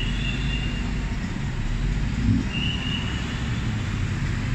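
Busy city street traffic: a steady rumble of passing cars and motorbikes, with two short high squeaks, one at the start and one about two and a half seconds in.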